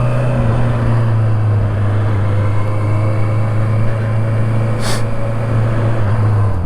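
Honda CB650R's inline-four engine running at a steady speed while riding, with one short click about five seconds in.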